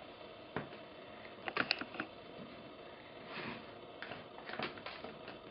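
Light plastic clicks and clatters of a Hot Wheels die-cast toy car and plastic track pieces being handled, with a cluster of quick clicks about a second and a half in and a few more near the end.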